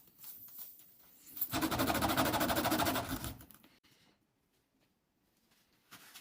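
A small motor buzzing with a fast, even rattle for about two seconds, starting about a second and a half in, after faint scraping.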